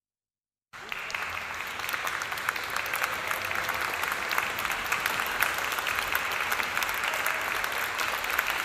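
Audience applauding: many hands clapping in a dense, steady mass that starts suddenly just under a second in.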